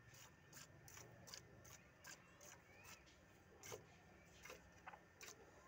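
Faint rhythmic squirts of milk from a cow's teats hitting a metal milking bowl during hand milking, about three or four squirts a second in a steady beat.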